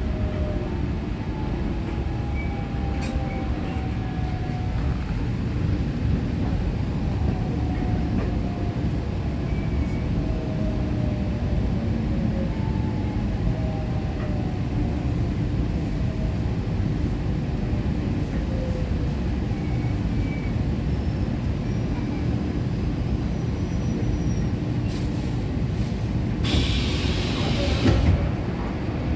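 Korail Line 4 electric train running, its Toshiba GTO VVVF inverter whining in repeated falling tones under a steady low rumble, typical of the train slowing. A burst of hiss comes near the end.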